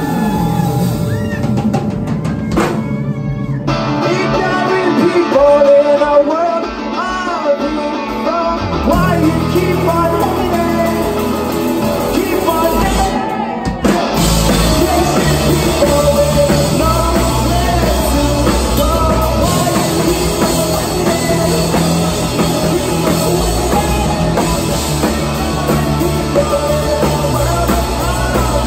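Live rock band playing, with electric guitars, bass and drums and a sung lead vocal. The bottom end drops away for about five seconds near the start, and the full band comes back in about nine seconds in.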